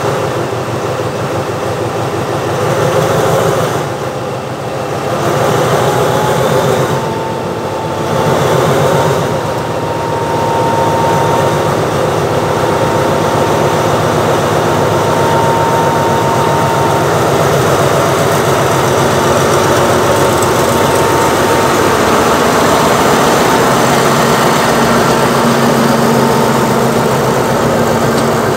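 Diesel locomotive engine running steadily at low speed, loud and close, with a thin steady whine in the middle.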